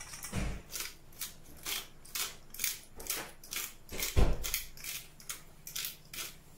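Handheld black pepper grinder being twisted over a bowl, grinding peppercorns in a run of short rasping strokes, about two a second. One dull knock about four seconds in is the loudest sound.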